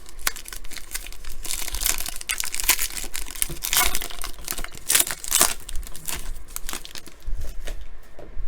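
Plastic wrapper of a trading card pack crinkling and tearing as the pack is opened and handled, with louder crackles about two, four and five seconds in.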